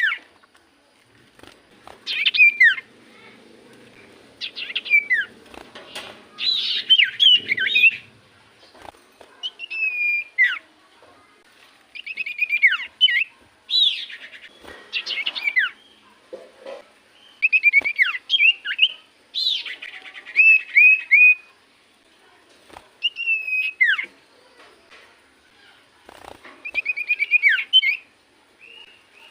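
Common iora (cipoh) singing: short phrases of rapid chirps and downward-sliding whistles, repeated every two to three seconds with brief pauses between.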